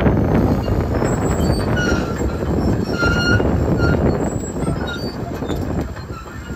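Komatsu crawler excavator running, its diesel engine rumbling steadily while the machine turns on its steel tracks, with repeated short, high squeals from the undercarriage.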